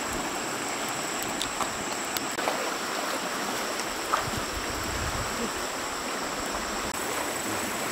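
Steady rushing of a flowing stream, with a few faint clicks over it.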